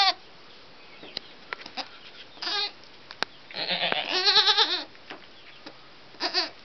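Goat bleats: a short one about two and a half seconds in, a longer quavering one about a second later, and a short one near the end.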